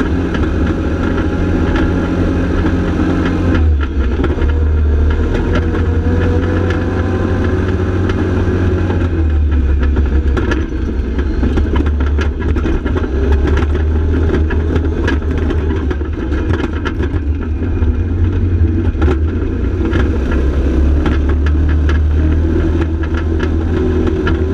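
Side-by-side UTV engine running under way, heard from inside the open cab, with frequent short rattles and knocks as the machine rides over the rough trail. The engine note shifts about four seconds in and again about nine seconds in.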